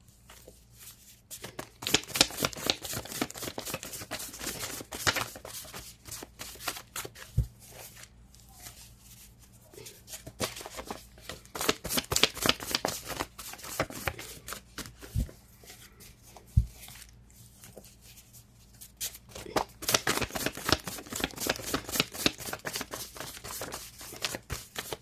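Tarot cards being shuffled by hand in three stretches of rapid crisp flicking and riffling, with short pauses and a few soft thumps between them.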